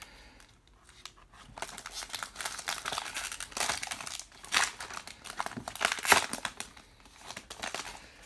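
Plastic trading-card pack wrapper crinkling and tearing as the pack is opened. It starts about a second and a half in, with a few louder crackles midway.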